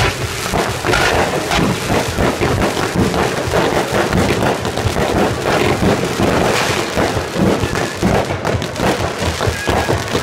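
Fireworks going off in a dense, continuous barrage of crackling pops and bangs, from ground fountains and aerial shells bursting.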